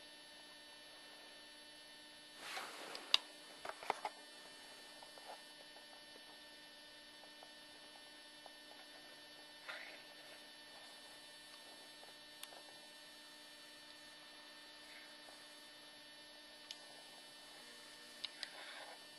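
Faint steady electrical hum, with a few soft clicks and knocks scattered through; the loudest is a sharp click about three seconds in.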